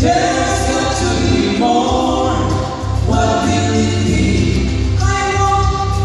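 Two women and a man singing a hymn in harmony into microphones. Held sung notes change every second or two over instrumental accompaniment with a steady bass.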